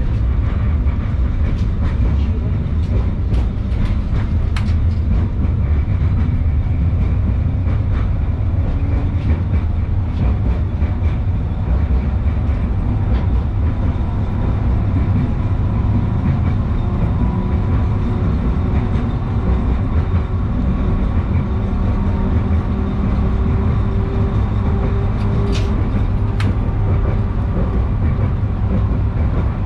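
Onboard sound of an LVS-86K articulated tram running along its track: a steady low rumble of wheels on rail, with a few sharp clicks early on and a pair near the end. A faint whine comes in about halfway through.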